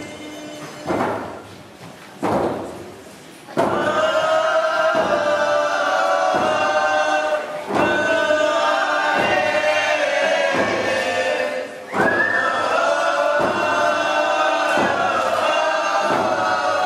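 Group singing of a First Nations song to a slow, steady drum beat, about one beat every second and a half. A few lone beats come first, and the voices join about three and a half seconds in.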